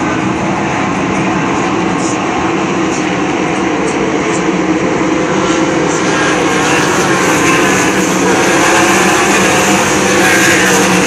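A pack of ASCS sprint cars with 360 cubic-inch V8 engines racing on a dirt oval, the engines running hard together in a steady mass of noise. It grows louder in the second half as the field comes down the straight past the grandstand.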